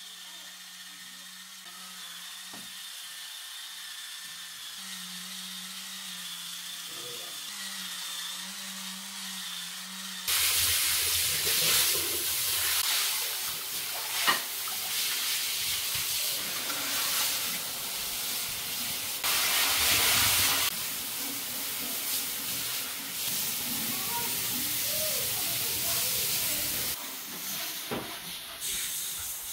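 An electric spin scrubber's motor hums steadily as its brush scrubs a wet tile floor. About ten seconds in, a handheld shower head starts spraying water into a washbasin, a loud rushing hiss of running water.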